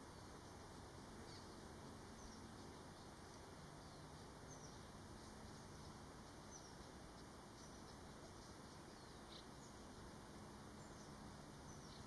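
Near silence outdoors: a faint steady hiss, with short, high, falling bird chirps every second or so.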